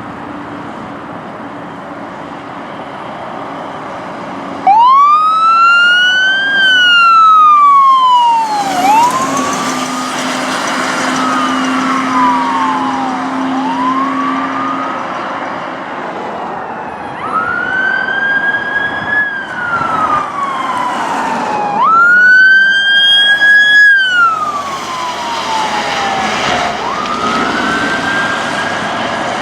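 Fire engine and ambulance responding code 3, electronic sirens wailing in long rising and falling sweeps that start suddenly about five seconds in, over the noise of the passing trucks.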